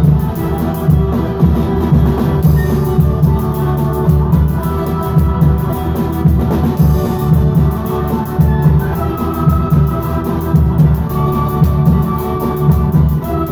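Live Andean folk band: drums and bass guitar keep a steady beat under a wind melody played on panpipes and then on a small end-blown flute, with held melody notes in the second half.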